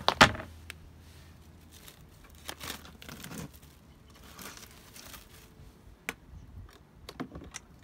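A plastic tub lid clacks down sharply on a wooden deck. Then plastic cling wrap crinkles and rustles, with tape peeling away, as the wrap is pulled back off the top of a plastic storage tub, with a few small clicks near the end.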